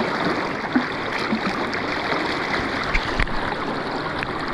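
River current rushing steadily, a constant wash of flowing water, with a couple of faint light knocks about three seconds in.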